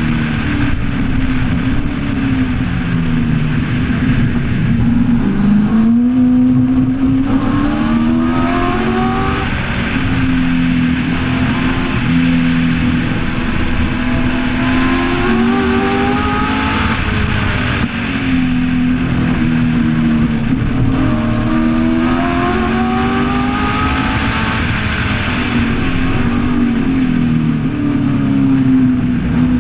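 1965 Cobra's Ford V8 at racing speed, heard from the open cockpit. The engine note climbs in pitch and drops back again and again as the car accelerates, shifts and lifts through the corners, over a steady rush of wind and road noise.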